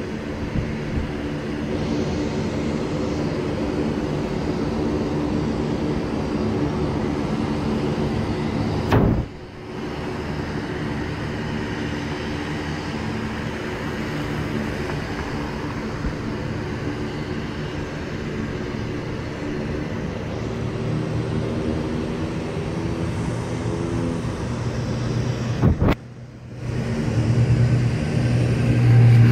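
Aircraft engines running on the airfield: a steady drone of several held pitches, broken twice by sudden cuts. Near the end the engines of a small twin-turboprop airliner rolling along the runway grow louder.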